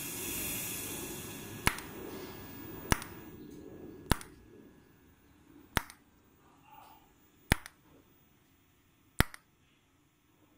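TIG welding arc striking in a series of short tack welds on thin sheet metal. Six sharp snaps come roughly every one and a half seconds, with a hiss under the first few seconds that fades out.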